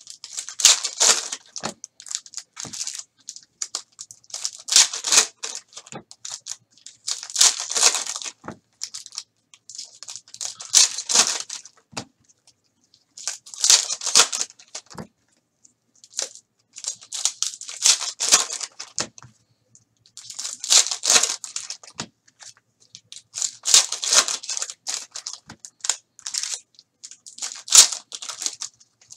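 Foil wrappers of Donruss basketball trading card packs being ripped open and crinkled by hand, one pack after another. The crackly tearing comes in about ten bursts, one every few seconds, with short pauses between.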